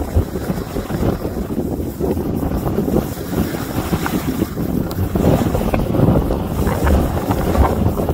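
Wind rumbling on the microphone of a skier moving downhill, rising and falling all through, with the scrape of skis over packed snow.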